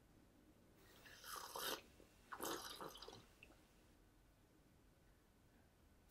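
A man slurping tea from a china cup: two noisy sips, about a second apart.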